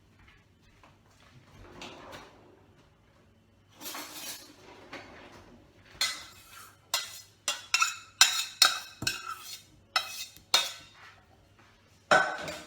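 Dishes and a spoon clinking and knocking as boiled carrot pieces are spooned into a container. It is quiet at first, with a short swish about four seconds in, then a quick string of sharp clinks from about six seconds in, and one more near the end.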